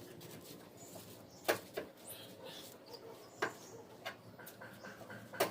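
A handful of sharp, irregular metallic clicks and knocks, about five in all, from a car jack and wheel spanner being worked at a raised front wheel, over a quiet background.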